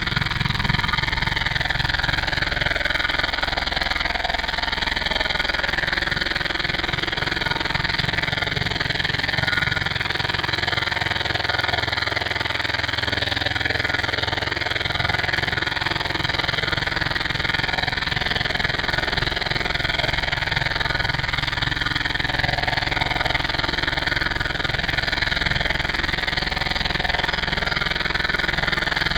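A steady, unbroken engine-like drone with a fine low pulsing that holds at the same level throughout.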